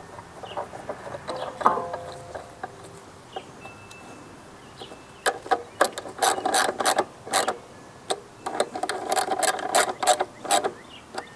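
Hand ratchet clicking in several quick runs from about five seconds in, tightening the bolts that mount a vacuum fuel pump on a Briggs & Stratton lawn mower engine. Before that come a few lighter clicks and taps.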